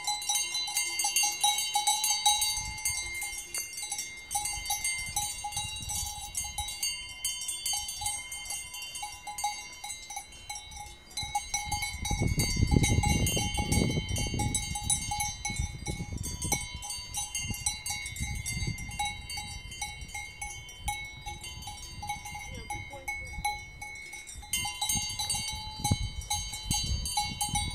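Cowbells on grazing cows' collars, several bells of different pitches clanking irregularly and ringing on together as the cows move their heads. About halfway through, a low rumble on the microphone swells for a couple of seconds.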